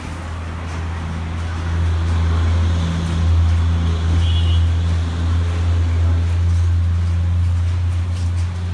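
A steady low mechanical hum, swelling about two seconds in and easing off near the end.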